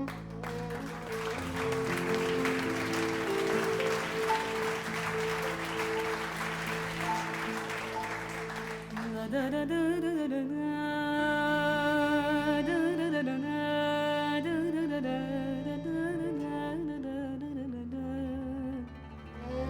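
Arabic orchestral music: held string chords under a haze of audience applause for the first half, then an ornamented melody line with vibrato over the ensemble.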